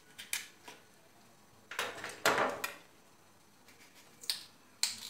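Knife cutting and scraping small channels into the flesh of a raw black radish: about six short, crisp scraping strokes, the two longest near the middle.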